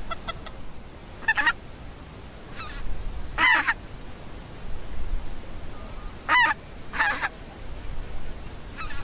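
Greylag geese honking in flight: about six short, loud calls at uneven intervals.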